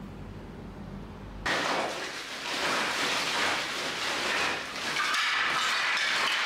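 Wooden offcuts tumbling and clattering onto a tiled floor as they are tipped out of a plastic bag, with the bag rustling. It starts suddenly about a second and a half in, after a low steady hum.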